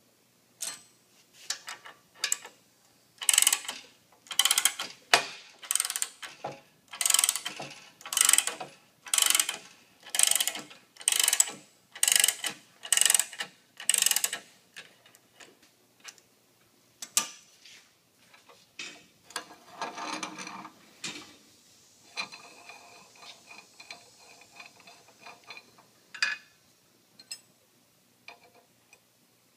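Ratchet wrench clicking in about a dozen strokes, roughly one a second, turning a bearing puller's coarse-threaded jacking nut to draw the outer bearing race out of a Toro basket roller. In the second half, lighter metallic scraping and ringing.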